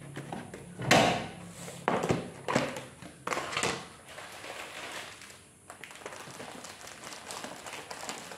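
Household items being set down and handled on kitchen cabinet shelves: a handful of sharp knocks and rustles in the first four seconds, the loudest about a second in, then quieter handling noise.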